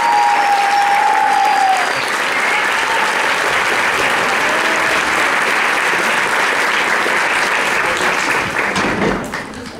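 Audience applauding loudly, with a few held cheers over it in the first two seconds; the applause dies away near the end.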